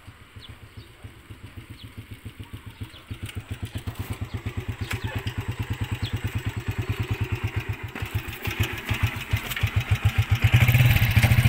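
Motorcycle engine of a tricycle (motorcycle with sidecar) running with an even, fast pulsing beat, growing louder as it pulls up close. Near the end it becomes markedly louder and smoother.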